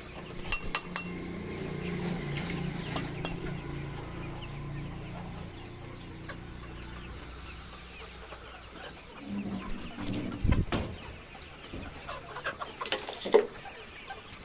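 A flock of chickens clucking, with a few sharp clicks early on and a loud thump about ten seconds in.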